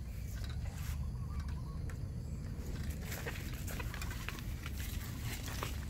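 Footsteps in grass and leaf litter, with scattered light clicks and rustles from a wire-mesh fish trap being handled and carried, over a steady low rumble.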